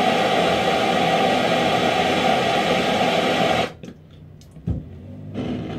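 Hand-held propane torch burning with a steady hiss, then shut off abruptly about two-thirds of the way through; a short knock follows.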